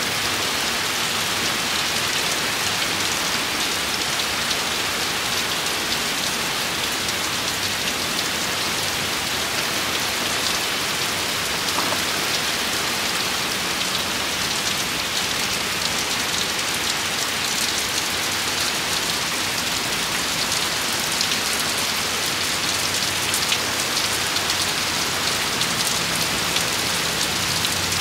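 Heavy rain pouring steadily onto a wet street and pavement: a dense, even hiss of drops that holds at the same level throughout.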